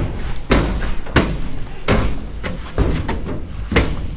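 Footsteps climbing a steel staircase with checker-plate treads: a run of heavy thuds on the metal steps, about one every half second to a second.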